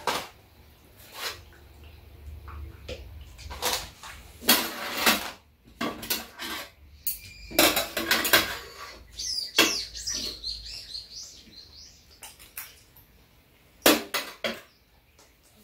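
Metal spoons and chopsticks clinking and scraping against stainless steel bowls and a large metal tray during a meal, in irregular sharp clatters.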